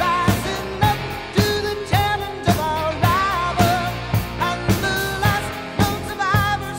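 Background pop-rock song: a sung melody over a steady drum beat, about two beats a second.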